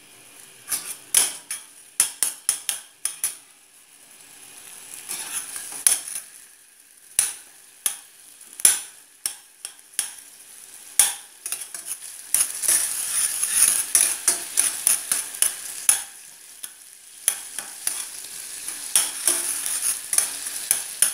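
Crushed garlic sizzling in hot olive oil and pork lard in a small stainless-steel saucepan, stirred with a metal spoon that clicks and scrapes against the pan again and again. The sizzle grows louder about halfway through and again near the end.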